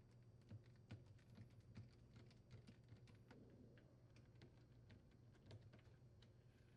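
Faint, irregular small clicks of a Phillips screwdriver turning out the door latch mounting screws on a GE dishwasher.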